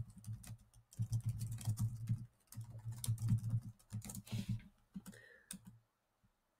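Typing on a computer keyboard: a quick run of keystrokes for about four and a half seconds, then a few lone clicks.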